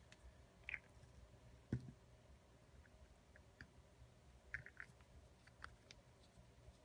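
Faint scattered clicks and light taps of fingers handling card stock and twine, with one soft low knock a little under two seconds in, over quiet room tone.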